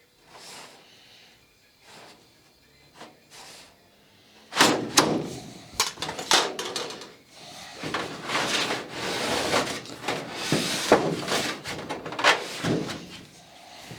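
Hand work on thin sheet aluminium: a few faint clicks, then a sharp knock about four and a half seconds in, followed by a run of irregular scraping and rubbing strokes as the metal skin is handled and worked.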